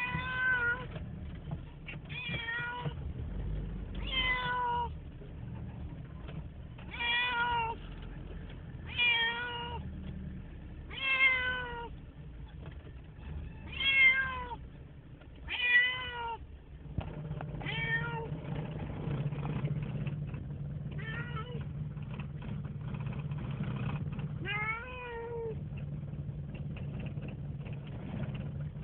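Domestic cat meowing over and over, a drawn-out call about every two seconds that drops in pitch at its end. The calls grow fewer and fainter in the second half, while a steady low hum comes in. The owner takes it for the cat calling for a mate.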